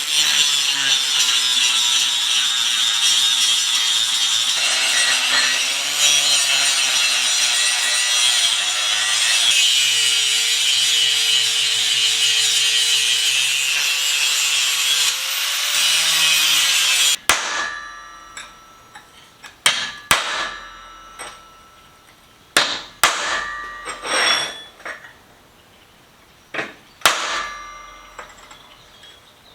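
A power tool grinding steel runs steadily for about seventeen seconds, its pitch shifting with the load, then stops abruptly. After that a hammer strikes steel several times at uneven intervals, each blow ringing.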